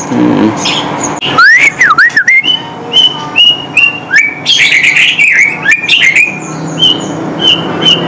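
Several caged songbirds calling: swooping whistled notes, a burst of busy chirping in the middle, then a run of short high notes repeated about three times a second.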